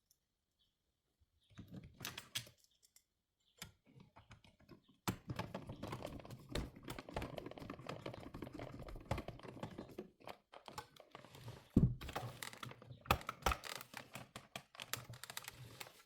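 Hands handling small plastic and electronic parts: a few short clatters, then from about five seconds in a dense run of rapid clicks, taps and rustling.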